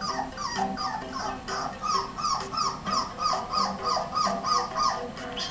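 Shetland sheepdog puppy whimpering in a quick run of short, high yips, about three a second, each falling in pitch, stopping near the end. It plays through a laptop speaker.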